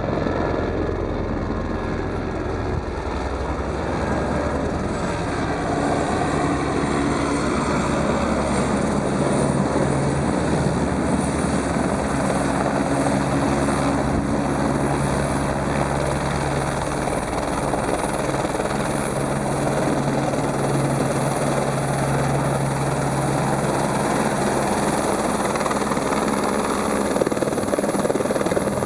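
Light helicopter flying in and coming in close: a steady rotor drone with a thin high whine that rises slightly in pitch early on.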